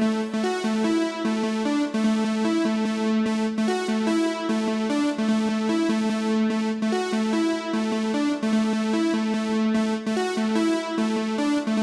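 Background music: an electronic track with synthesizer and keyboard notes in a repeating pattern.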